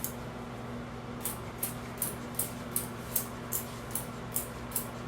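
Spray bottle misting conditioner onto hair in quick repeated squirts, about two and a half hissing spritzes a second, starting about a second in, over a steady low electrical hum.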